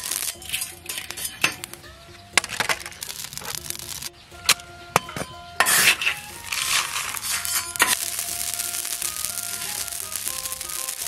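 Metal spatula stirring and scraping hot gravel in a wok, the small stones rattling and clinking, with several sharp cracks as dried pork skin puffs up in the heat. Background music with held notes underneath.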